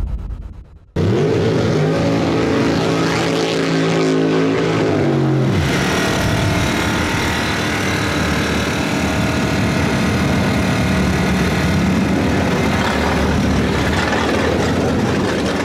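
A vehicle engine running at a steady pitch, which winds down and stops about five seconds in. Steady engine noise follows.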